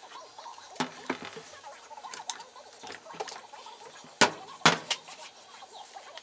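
Silicone spatula scraping and knocking against a plastic measuring jug of soap batter, played sped up. There is a run of small clicks and scrapes, with two sharp knocks a little after four seconds in.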